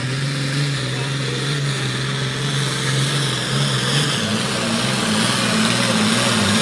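Diesel engine of a hot farm class pulling tractor running hard under full load as it drags a weight-transfer sled, its note climbing about four seconds in.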